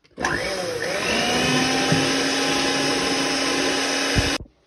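Electric hand mixer switched on: its motor whine rises over about a second as it comes up to speed, then runs steadily with the beaters working egg yolks into a thick sugar mixture. It is switched off suddenly near the end.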